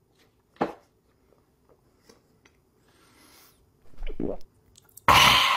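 Mouth sounds of a man with a mouthful of wasabi paste: a short wet click about half a second in, a brief rising hum a little after four seconds, then a loud, harsh breath out near the end.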